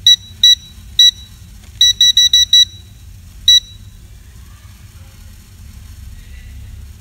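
ANENG M118A digital multimeter beeping at each button press as its measurement mode is switched: nine short, high, identical beeps in the first few seconds, five of them in a quick run about two seconds in.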